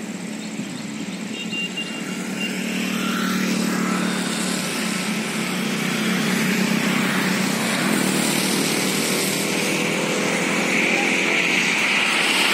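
A vehicle's engine running with a steady hum, under wind and road noise that grows louder over the first few seconds and then holds.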